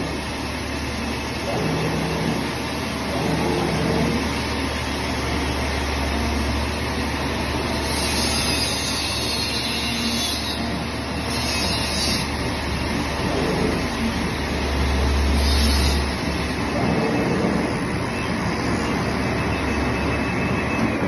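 Flatbed CNC digital cutting machine running: a steady low machine hum, with a few short hissing bursts around the middle.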